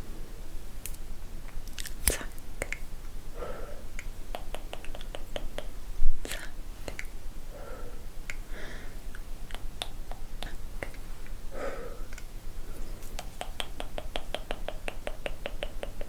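ASMR mouth sounds close to the microphone: wet tongue clicks and lip smacks with soft breathy mouth noises between them. Two rapid runs of clicks come about four seconds in and again near the end, and a sharp pop about six seconds in is the loudest sound.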